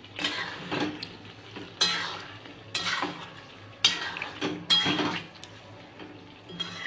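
Metal spatula scraping and clanking against a stainless steel pan as thick chicken and potato curry is stirred, about one stroke a second, some strokes leaving a short metallic ring.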